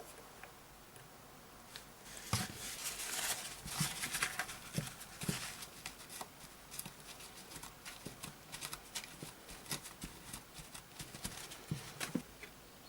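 Irregular light clicks and taps from handling multimeter test probes and a circuit board at a workbench. They start about two seconds in and keep going at an uneven pace.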